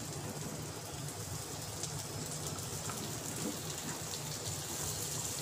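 Chopped cabbage sizzling and crackling as it fries in melted butter in a steel wok over a gas flame: a steady hiss that grows a little louder near the end.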